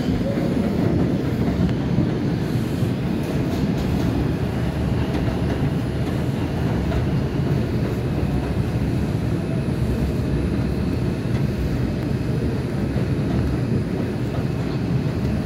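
New York City subway train, an R142, running on the rails with a steady, continuous noise of wheels and car body.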